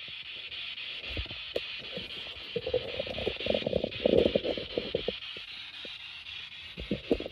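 Steady static-like hiss with scattered clicks and a dense patch of crackling in the middle.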